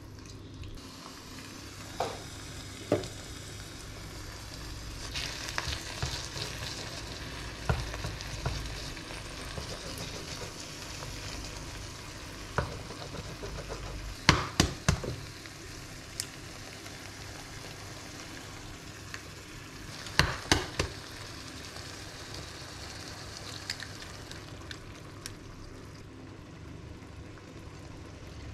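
Chopped tomato and eggplant sizzling in a frying pan as it is stirred with a spatula. Sharp knocks against the pan come now and then, with two quick runs of them around the middle and about two-thirds through.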